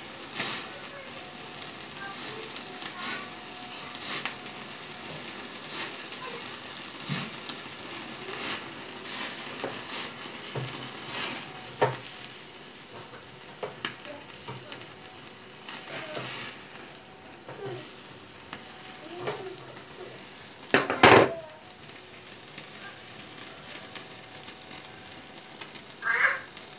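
Chicken sizzling and crackling as it grills over the open flame of a gas stove burner: a steady hiss with frequent small pops, and one louder clatter about 21 seconds in.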